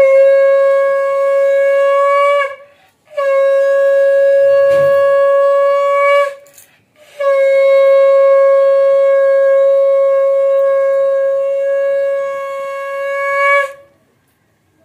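Conch shell (shankha) blown in three long, steady blasts, the third about twice as long as the first two, swelling briefly just before it cuts off. Blowing the conch marks a moment in the puja ritual.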